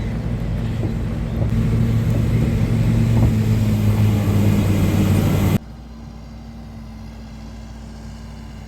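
A motor vehicle's engine running steadily and growing louder, then cut off abruptly about five and a half seconds in, leaving a fainter steady hum.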